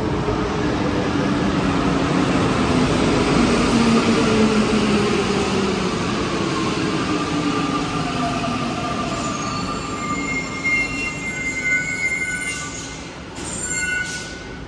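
A rubber-tyred Santiago Metro Line 1 train slowing to a stop. Its motor whine falls in pitch as it slows and is loudest a few seconds in; high brake and wheel squeals come in over the last few seconds, with a few sharp clicks near the end.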